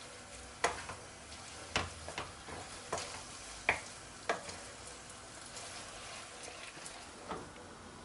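Spaghetti sizzling in a frying pan on a gas burner, with a utensil knocking and scraping against the pan about once a second as it is stirred. The knocks thin out after about four and a half seconds, leaving the sizzle with one more knock near the end.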